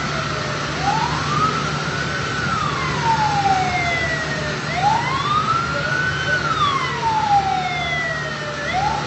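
An emergency vehicle siren wailing, its pitch rising and falling slowly about once every four seconds. Under it are a steady higher tone and a steady low hum.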